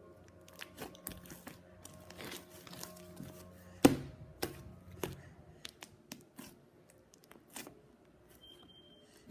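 Slime being squeezed and stretched by hand: an irregular run of sticky pops and crackles, the loudest about four seconds in.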